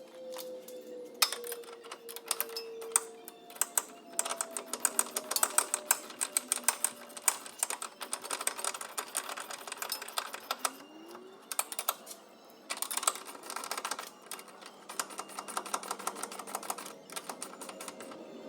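Rapid metallic clicking in bursts of many quick clicks with short pauses between, typical of a hand ratchet being swung back and forth to run a nut or bolt.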